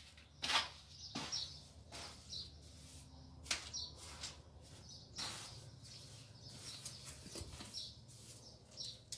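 Mason's trowel scraping and slapping through wet cement-and-sand mortar on a sheet of cardboard, in a series of short, irregular scrapes and knocks.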